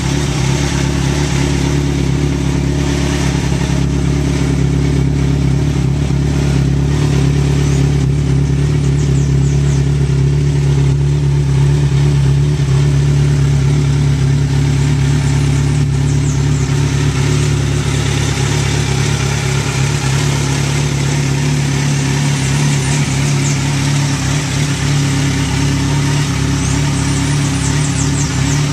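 Kawasaki 1000 motorcycle's inline-four engine idling steadily, with no revving.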